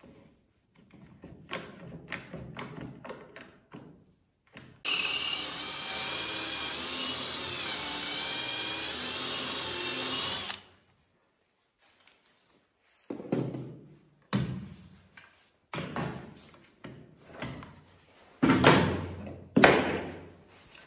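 Electric drill boring a hole into the edge of a plywood board through a drill-guide jig: the motor runs steadily for about six seconds, its pitch sagging for a moment as the bit bites into the wood, then stops suddenly. Light clatter of bar clamps being set comes before it, and a string of sharp knocks follows as the clamps are released and the boards handled.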